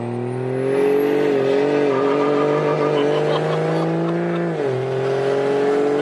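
6.7 Cummins inline-six diesel in a fourth-gen Ram accelerating hard under full throttle, heard from inside the cab, with the high whistle of its BorgWarner S369SXE turbo rising as it spools. The engine note climbs steadily, drops suddenly at a gear shift about four and a half seconds in, then climbs again.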